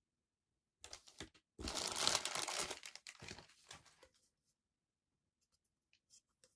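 Thin plastic packaging bag crinkling and rustling, loudest for about two and a half seconds from around a second and a half in, as the figure's black plastic display base is handled out of its wrapping. A few faint clicks follow near the end.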